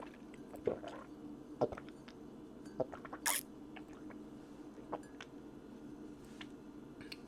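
Quiet mouth sounds of someone eating Mie Sedaap instant noodles: scattered wet chewing clicks and lip smacks, with one short slurp-like hiss a little after three seconds, over a faint steady hum.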